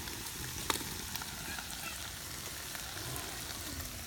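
Green beans sizzling in a frying pan over a brick rocket stove: a steady hiss with scattered small pops, and one sharper pop just under a second in.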